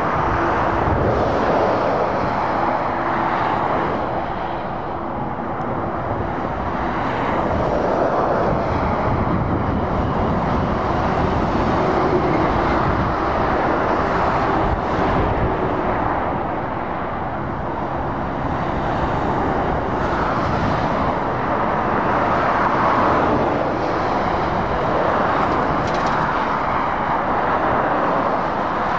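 Motorway traffic: lorries and cars passing close by, a steady wash of tyre noise and diesel engine drone that swells and fades as each vehicle goes by.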